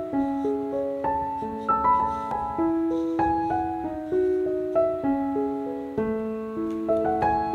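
Soft solo piano background music: single notes and chords played one after another and left to ring.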